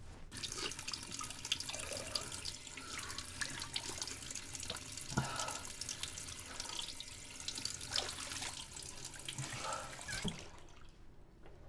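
Faucet running into a bathroom sink, with water splashing as it is scooped up by hand. The flow stops suddenly about ten seconds in as the tap is turned off.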